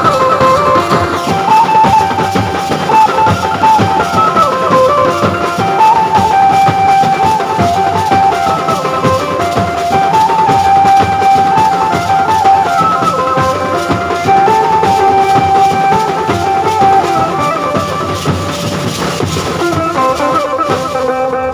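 Street drum band beating large barrel drums with sticks in a dense, steady rhythm, with an amplified melody line repeating short phrases over the drums.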